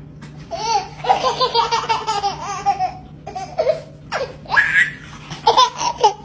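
Toddler laughing hysterically in rapid, high-pitched bursts, with one rising squeal about four and a half seconds in.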